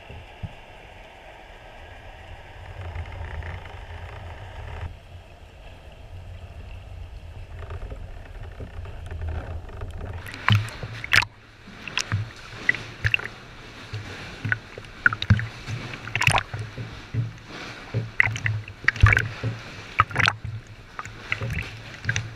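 Muffled underwater rumble heard through a GoPro Hero 3+ housing. About ten seconds in the camera comes up at the surface, and water splashes and slaps against the housing in many sharp, irregular hits.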